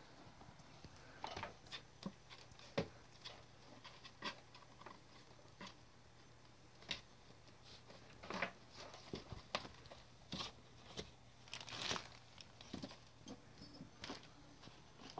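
Young kittens scrambling and pouncing on blankets and a plastic bag: faint, irregular patters, scratches and crinkling rustles.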